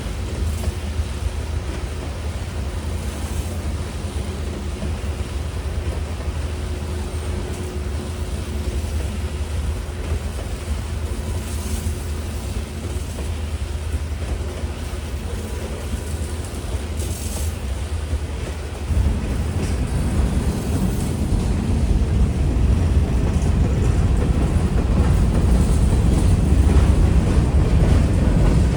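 Two CSX diesel locomotives working hard to pull a heavy freight train up a grade: a steady deep engine rumble that jumps suddenly louder about two-thirds of the way in and keeps building toward the end.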